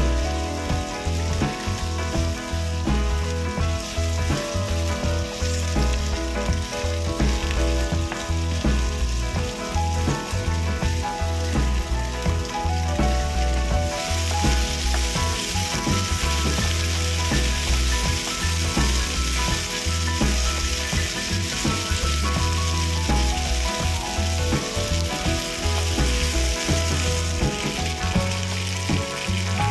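Chicken strips and onion frying in oil in a pan, a steady sizzle with the scrape of a wooden spatula stirring them. The sizzle grows louder about halfway through. Background music plays underneath.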